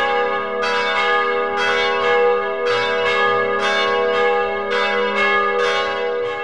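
Church bells being rung one after another, about two strikes a second, each bell still ringing on as the next is struck.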